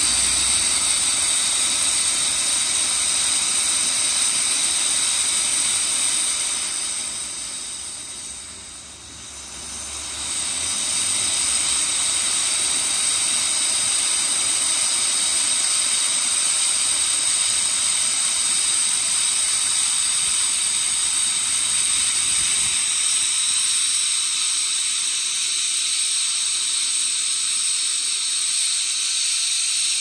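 Loud steady hiss of steam blowing out from low beneath CNJ 113, a 1923 ALCO 0-6-0 steam locomotive standing under steam. It falls away for a moment about eight seconds in, then comes back at full strength.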